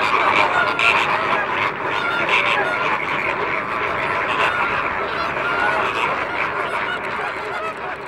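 A large flock of greater flamingos calling all at once: a dense, continuous chorus of overlapping goose-like honks, growing slightly fainter near the end.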